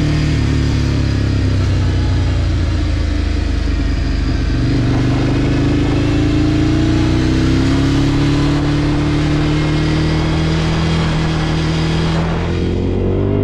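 Ducati Scrambler Desert Sled's air-cooled L-twin engine under way, its pitch climbing and easing several times as the motorcycle accelerates through the gears and rolls off the throttle.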